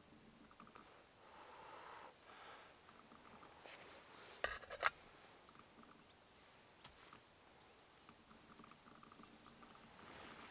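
Flint struck with a steel striker: two sharp strikes about half a second apart, then a fainter one, throwing sparks onto char cloth held against the flint until it catches an ember. High bird chirps sound twice over faint handling rustle.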